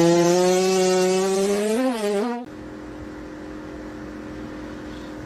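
A cat's long, drawn-out yowl that rises slightly in pitch and wavers before cutting off abruptly about two and a half seconds in, followed by a quieter steady hum.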